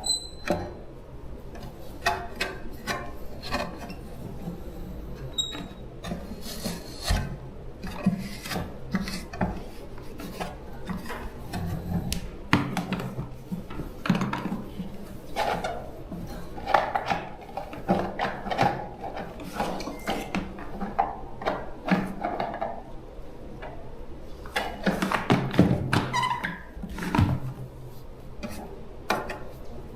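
Hand work on electric fan parts: irregular scraping, rubbing and filing noises mixed with scattered clicks and knocks as tools and parts are handled.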